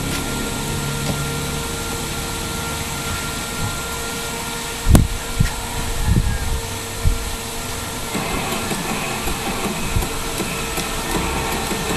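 Steady background hum, with a sharp knock about five seconds in and a few lighter knocks and rustles after it as a TV mainboard is moved and its cable connector handled on a wooden workbench.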